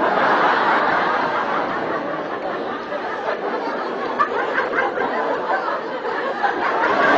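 Studio audience laughing after a punchline: a dense crowd laugh that starts abruptly, eases a little midway and swells again near the end.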